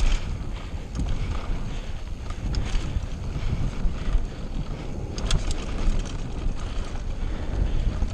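Wind buffeting the microphone over the rumble of a downhill mountain bike's tyres on a dry dirt trail at speed, with sharp knocks and rattles from the bike over bumps.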